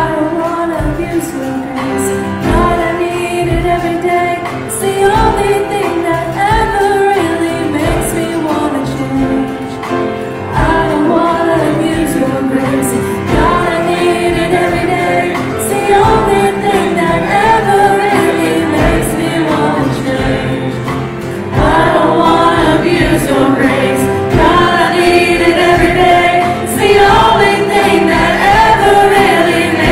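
Gospel worship song: voices singing together as a choir over instruments with a steady beat. It grows louder about two-thirds of the way through.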